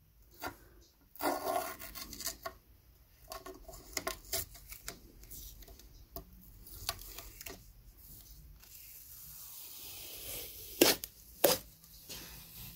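Blue painter's masking tape being peeled off a freshly painted cast-iron cylinder head, crackling and tearing in short irregular bursts as it lifts, with two louder sharp snaps near the end.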